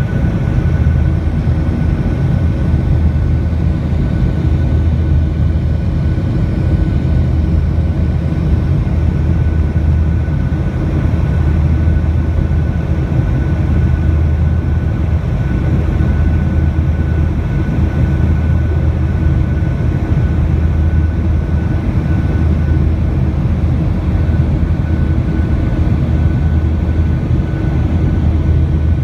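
Boeing 737-800 in its climb after takeoff, heard inside the cabin: the steady, loud rumble of its CFM56-7B engines and the airflow, with a thin steady high whine above it.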